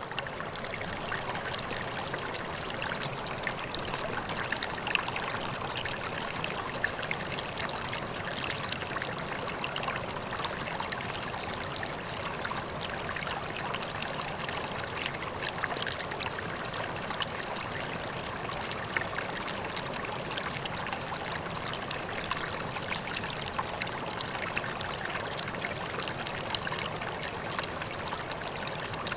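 Water steadily pouring and trickling into a koi pond, an even rush with many small splashes.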